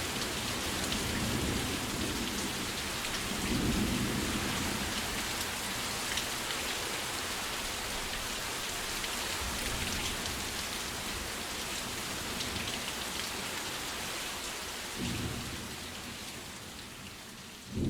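Steady downpour of rain hissing, with low rolls of thunder about four seconds in and again near the end.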